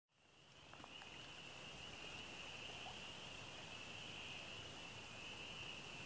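Chorus of many frogs calling at once, blending into a steady high-pitched trill that fades in over the first second.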